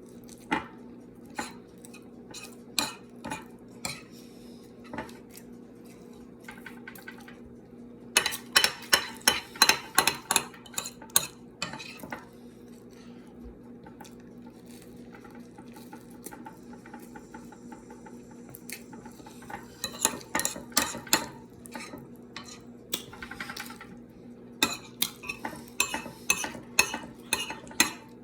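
Metal cutlery clinking and scraping against a plate in quick runs of sharp strikes, over a steady low hum.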